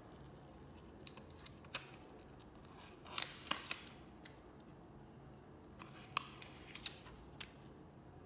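Scattered small clicks and short scrapes of hand repair tools working on an iPhone 7 Plus's parts, loudest in two clusters about three and six seconds in.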